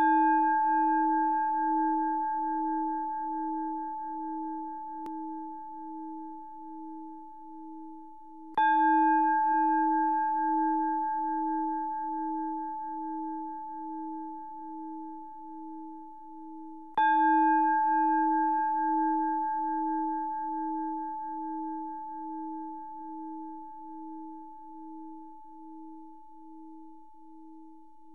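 Buddhist temple bowl bell struck three times, about eight and a half seconds apart, each stroke ringing on and slowly fading with a wavering hum, signalling the opening of the service.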